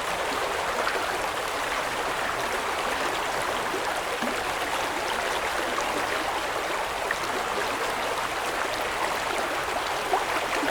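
Shallow river stream flowing and burbling steadily, a continuous rush of water with small splashes and gurgles.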